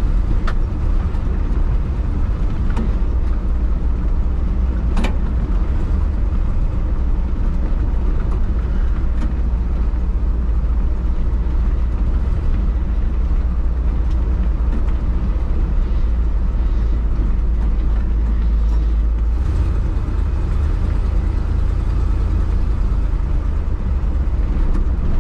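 1979 Ford F-250 pickup driving along, heard from inside the cab: a steady low engine drone and road noise, with one sharp click about five seconds in.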